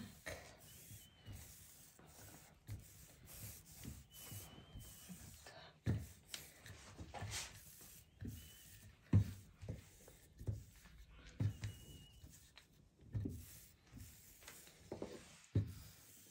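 A rolling pin rolling out pie dough into a sheet on a table: faint rubbing with irregular soft knocks.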